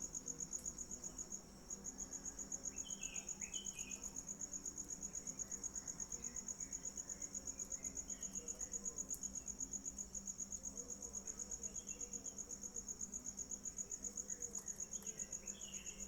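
Cricket chirping in a high, fast-pulsed trill that keeps going, breaking off briefly about a second and a half in. Faint bird chirps come now and then.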